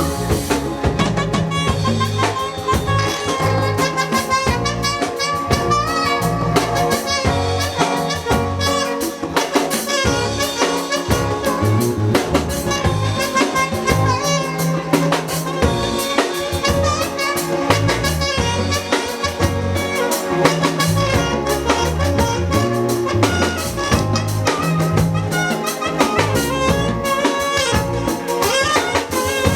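Live band playing at a sound check, with a drum kit keeping a steady beat over bass and held melodic parts.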